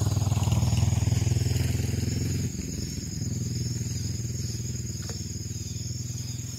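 Motorcycle engine running nearby, loud for the first couple of seconds, then dropping and fading as it moves off. Insects buzz steadily in the background.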